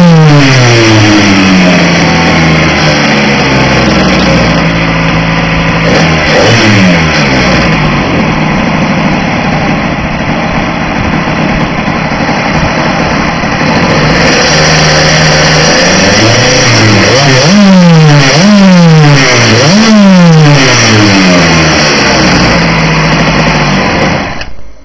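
Small two-stroke Blata engine of a petrol RC trimaran speedboat running, its pitch rising and falling again and again as the throttle is worked, with several quick revs in a row in the second half. It stops sharply near the end.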